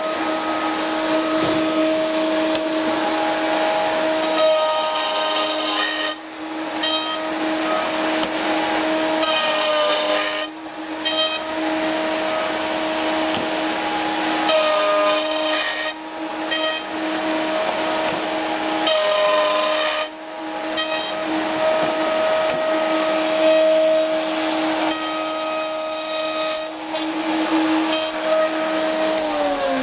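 Triton circular saw mounted in a Workcentre table running with a dust extractor, cutting a series of finger-joint slots in a board a few seconds apart. Right at the end the saw motor is switched off and its pitch falls as it winds down.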